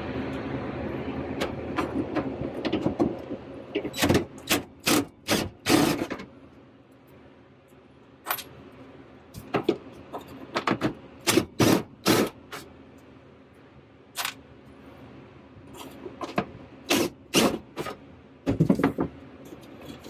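A cordless drill with a long extension bit whirs for about three seconds, backing out a mounting screw on a window air conditioner. It is followed by a string of sharp clicks and clunks of the tool and metal parts being handled.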